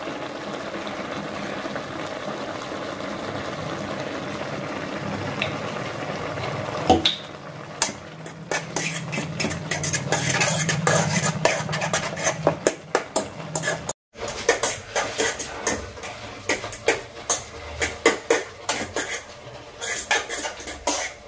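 Instant noodles simmering in a metal kadhai with a steady hiss, then from about eight seconds in a spoon stirring them, clinking and scraping against the pan in quick, uneven strokes, with a brief dropout about halfway through.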